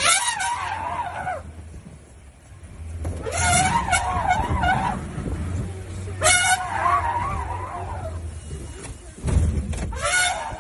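An elephant trumpeting four times, each blast a loud wavering call of about a second or so, over the low rumble of a vehicle engine running.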